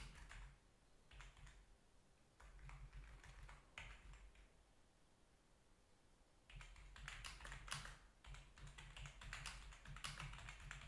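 Faint typing on a computer keyboard: short runs of quick keystrokes, a pause of about two seconds in the middle, then a busier run over the last few seconds.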